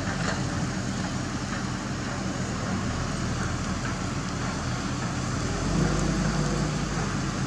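Crawler crane's diesel engine running steadily while it hoists a precast concrete bridge girder, briefly louder about six seconds in.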